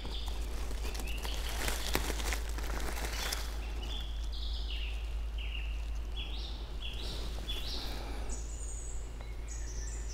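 Dry leaf litter rustling and crackling for the first few seconds as a mushroom is handled on the forest floor. A songbird then sings a string of short whistled notes that step up and down in pitch, with higher notes near the end.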